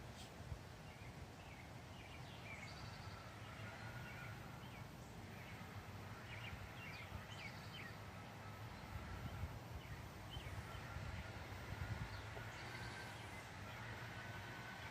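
Small songbirds chirping in short, quick calls, with a faint steady whine from a distant leaf blower that grows a little louder in the second half, over a low rumble of breeze.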